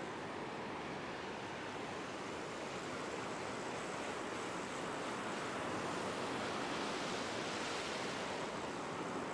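Ocean surf washing over a sandy beach: a steady rush of breaking waves and foam in the shallows, swelling a little past the middle.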